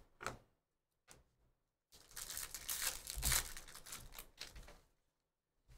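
Upper Deck hockey card pack wrapper being torn open and crinkled in the hands. A brief rustle comes at the start, then about three seconds of dense crinkling from about two seconds in.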